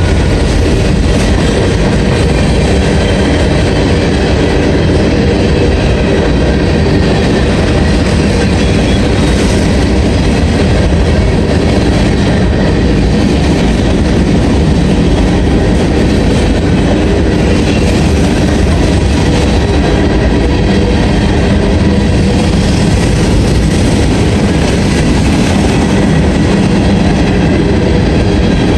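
Freight train of covered hopper cars rolling past at close range: steady, loud noise of steel wheels running on the rails.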